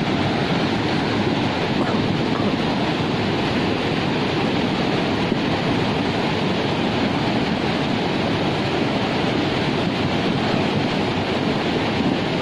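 Swollen floodwater rushing steadily in a dense, unbroken noise.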